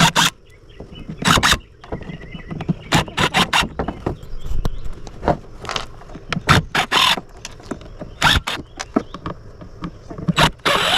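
Screws being worked out of an old radio with a screwdriver: a dozen or so short, sharp scrapes and clicks of tool and metal, irregularly spaced.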